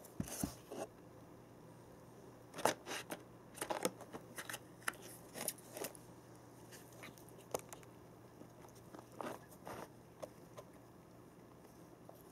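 A cat gnawing and scraping at the cardboard and paper packaging of a printer box: irregular dry crackles and scrapes in short clusters, busiest in the first half and again near the end.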